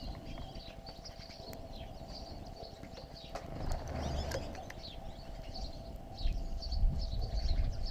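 Small birds chirping, many short high chirps scattered throughout, over a faint steady hum, with low rumbling noise swelling around the middle and again near the end.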